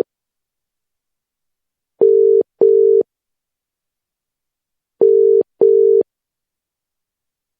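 Telephone ringing tone heard by the caller, in the British-style double ring: two short steady buzzing pulses, then a pause of about two seconds. The pair comes twice, about three seconds apart.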